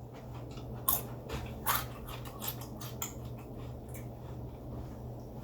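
A person biting into a Fritos corn chip: two loud crunches about one and two seconds in, then softer crunching as it is chewed.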